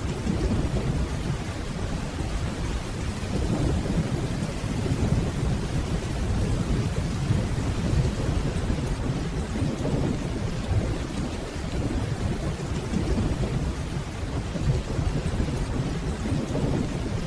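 Steady rainfall with low, deep rolling thunder rumbling in the distance underneath it, continuous throughout without sharp cracks.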